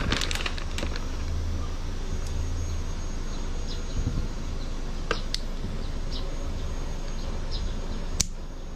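Small clicks and rattles of an airsoft pistol magazine being handled, with a crinkle of the plastic BB bag at the start and one sharper click just after eight seconds, over a steady low hum.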